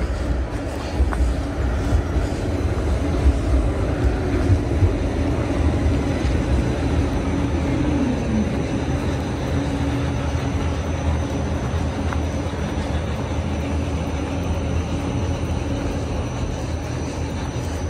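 Steady low rumble of city traffic with a droning motor hum that drops in pitch about eight seconds in.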